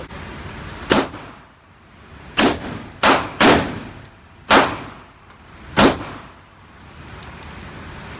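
Six gunshots at uneven intervals, each sharp and followed by a short echo, two of them fired close together a little past the middle.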